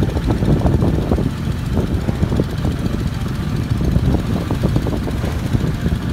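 Boat engine running steadily as a low rumble, mixed with wind noise on the microphone.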